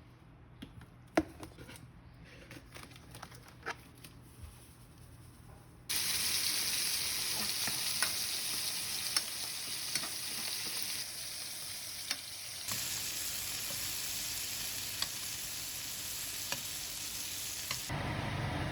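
Food sizzling in a hot frying pan, starting suddenly about six seconds in with occasional pops, after a few seconds of quiet kitchen clicks and clatter.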